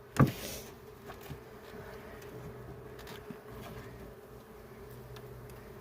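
Honeybees buzzing steadily around an open hive, a low even hum, with one sharp knock just after the start.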